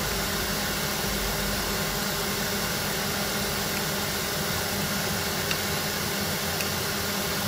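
Steady, even hiss with a faint low hum that does not change.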